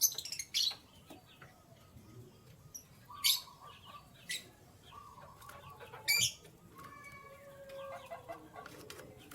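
Canaries chirping: short, sharp high chirps, the loudest right at the start and at about three, four and six seconds in, with softer, lower calls in between.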